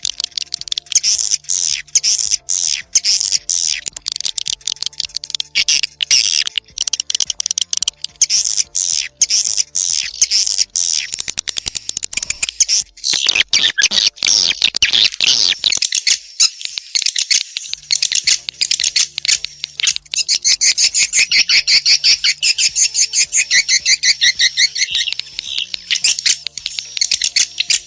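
Edible-nest swiftlet lure call recording: dense, rapid twittering trills of high chirps, with a brief falling sweep about halfway through, the sound played in swiftlet houses to draw the birds in.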